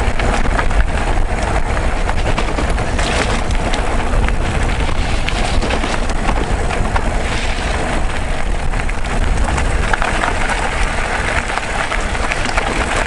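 Mountain bike moving over a rough gravel track: steady tyre noise with many small rattling clicks from the bike and stones, and wind buffeting the microphone as a low rumble.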